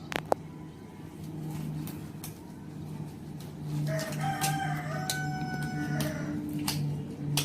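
A rooster crowing once: one long call of about two and a half seconds, starting around the middle, over a steady low hum. A few sharp clicks come near the start.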